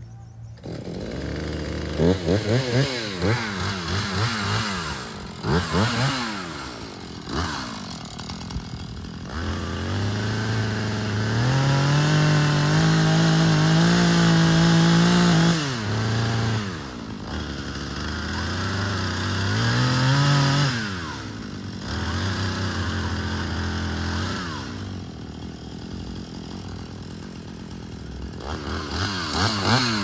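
Husqvarna chainsaw running, revved up and let back down to idle several times, with its pitch rising and falling. About halfway through it is held at high revs for several seconds.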